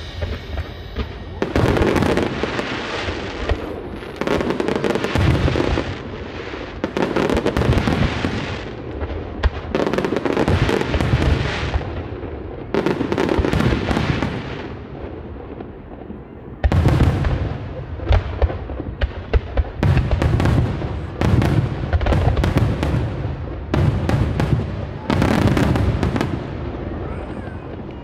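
Aerial firework shells bursting in quick succession, a bang every one to two seconds, each trailing off in crackle and echo.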